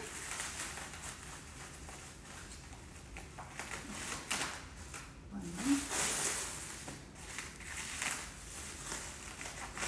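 Plastic cling wrap being peeled and pulled off a chilled cake roll, crinkling and rustling in irregular bursts.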